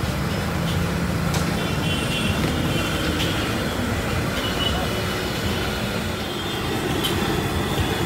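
Steady street traffic noise, with a few faint clinks as a metal ladle scoops and pours from a large aluminium pot.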